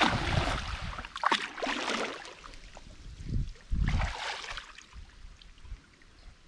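Water splashing as a man wades and throws a cast net, the weighted net landing on the water with a spatter of splashes. Another short splash comes about four seconds in, then the water goes quiet.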